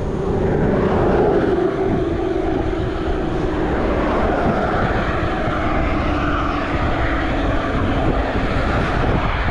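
A distant engine drones, its pitch sinking slowly, over wind buffeting the microphone.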